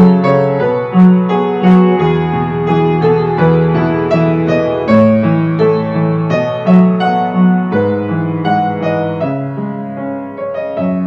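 Piano music: struck notes over held low chords.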